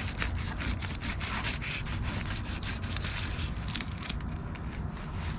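A knife scraping and sawing through a sheepshead's scaly hide in quick, irregular strokes.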